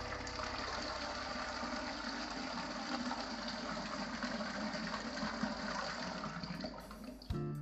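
Tap water pouring steadily into an aluminium pressure cooker, splashing onto toor dal as the pot fills to rinse the dal. The flow stops near the end.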